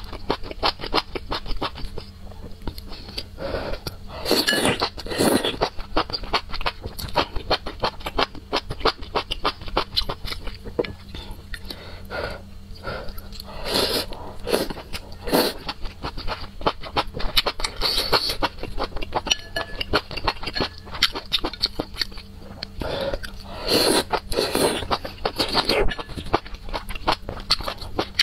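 Close-up eating of enoki mushrooms and noodles in spicy soup: wet chewing and mouth clicks throughout, with several longer slurps of noodles.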